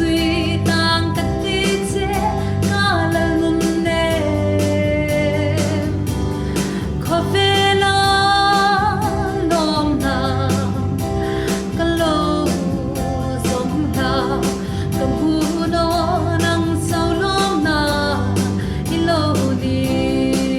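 Worship song: a singer's voice over guitar and a steady beat.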